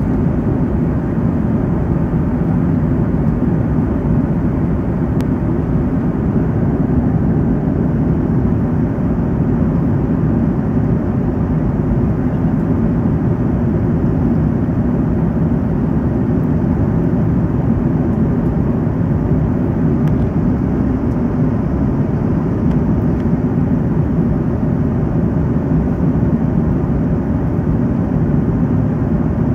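Jet airliner cabin noise in flight: the steady low drone of the engines and the air rushing past the fuselage, heard from a window seat, without change throughout.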